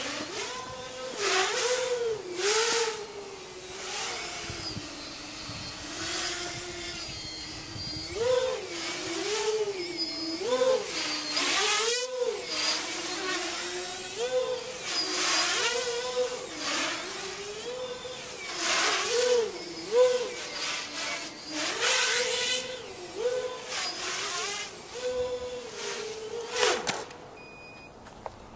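A 345 mm tricopter's electric motors and propellers whining in flight, the pitch rising and falling over and over with the throttle. Near the end the whine drops steeply and stops.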